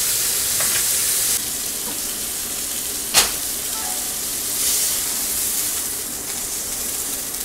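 Pork chop searing in a nonstick frying pan: a steady sizzle, a little quieter after about a second and a half. A single sharp click comes just past three seconds in.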